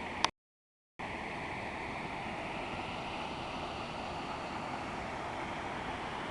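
Waterfall rushing steadily. Just after the start there is a sharp click, then the sound cuts out completely for about two-thirds of a second before the rushing returns.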